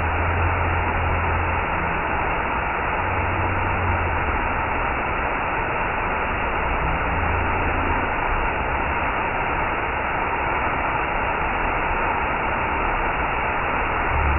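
Waterfall rushing: a steady, even roar of falling water, with an on-and-off low rumble underneath.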